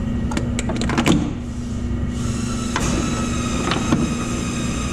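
A steady low machine hum with a constant tone, broken by a quick run of sharp clicks and light knocks in the first second. About two seconds in, a steady hiss with high whining tones joins it.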